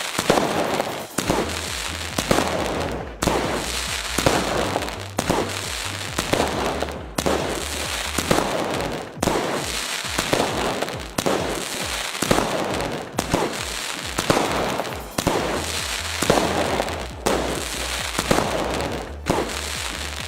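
A 60-shot aerial repeater cake firing shells one after another, about one a second, each shell bursting with crackling. Background music with a low bass line runs underneath.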